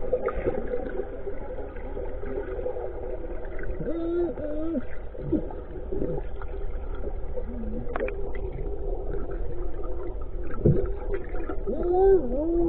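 Sound picked up underwater by a submerged camera beside a fish net: a continuous muffled water rumble with a steady low hum, and muffled voices from above the surface rising and falling in pitch.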